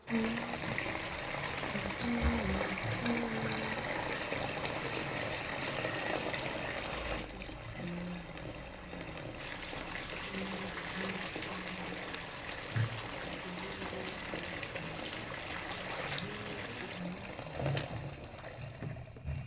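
Bath tap running into a bathtub: a steady rush of water that thins briefly about seven seconds in and stops near the end, with low sustained notes of a music score underneath.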